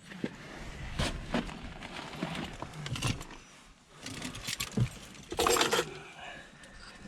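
Scattered clicks, knocks and rustling of things being handled, with a louder noisy burst lasting under a second about five seconds in.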